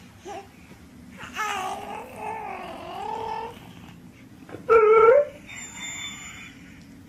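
Large black-and-tan dog whining in a long wavering call, then a short, louder rising call, then a fainter one.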